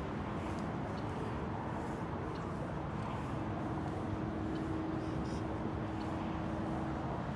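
Steady low rumble of outdoor background noise, with a steady hum joining about three seconds in and faint ticks about once a second.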